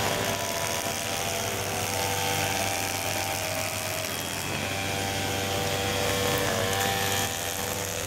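A machine running steadily: a constant low hum with a steady whine above it and a hiss.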